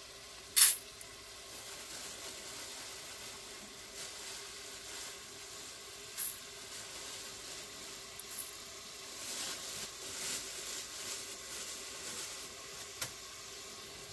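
A steady hiss from a gas burner heating a pot, with one loud sharp knock about half a second in and a smaller one near six seconds. Soft rustling of dry lentils being handled comes later.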